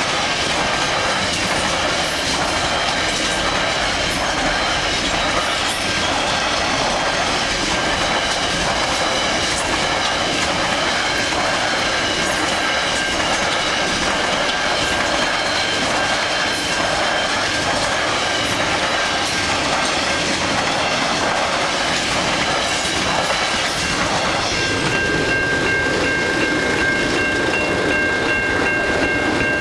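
Long container freight train rolling through a level crossing, its wagons clattering over the rails, with the crossing's warning bell ringing under the train noise. Near the end the train clears and the bell rings out clearly on its own.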